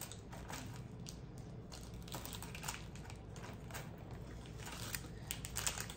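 Light clicking and rustling of small items, such as costume jewelry, being handled, with a cluster of sharper clicks near the end.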